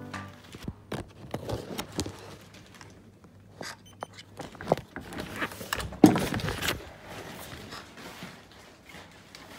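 Disposable plastic shoe covers crinkling and rustling underfoot with each step, really noisy, with a louder thump about six seconds in.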